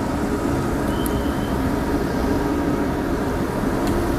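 Steady mechanical rumble with a low hum, unchanging throughout.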